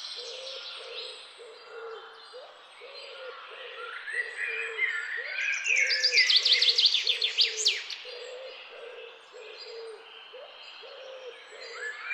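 Several birds singing together: high chirping song phrases with a loud, rapid trill in the middle, over a steady series of short, low hooting notes about twice a second.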